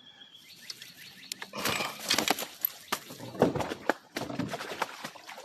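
A big bowfin thrashing and flopping, knocking against the boat in a quick, uneven run of knocks and scuffles, loudest about two and three and a half seconds in.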